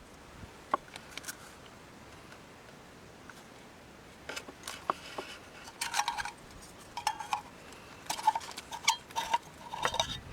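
Small hard objects being handled: a single sharp click about a second in, then a run of light clinks and rattles through the second half, some with a short metallic ring.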